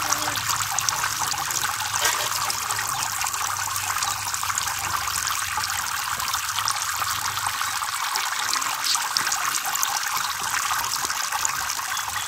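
Many thin streams of water from a small homemade fountain falling and splashing steadily into a tub of water, with a faint low hum underneath that fades about eight seconds in.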